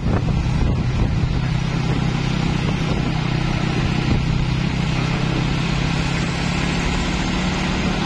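Moving road traffic: a steady low engine drone with tyre and wind noise.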